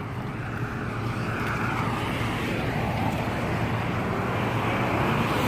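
Road traffic on a busy street, a steady rush of passing vehicles and engines that slowly grows louder.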